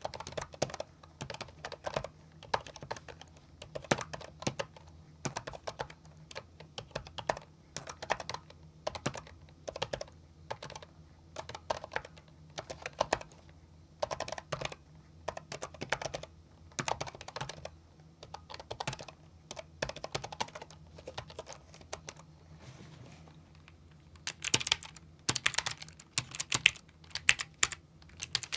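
Typing on mechanical keyboards, a switch-feel comparison test: short runs of keystrokes, then after a brief pause a brighter, crisper run of clicks near the end.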